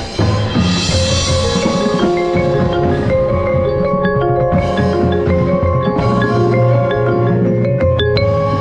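Background music: a melody on bell-like mallet percussion over a steady low beat.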